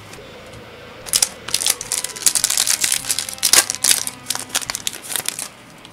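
Foil Yu-Gi-Oh Invasion of Chaos booster pack wrapper crinkling and crackling as it is handled and torn open. A dense run of crackles starts about a second in and stops just before the end.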